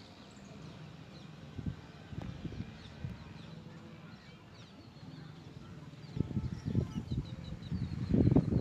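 Birds chirping, with short, high calls scattered throughout, and low muffled rumbles that build over the last couple of seconds.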